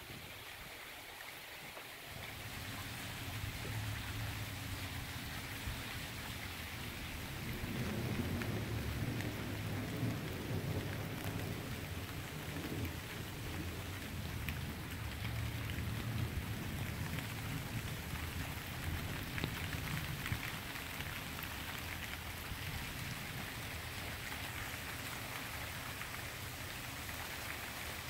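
Steady rain falling, with a long low rumble of thunder rolling in about two seconds in, loudest through the middle and easing off toward the end.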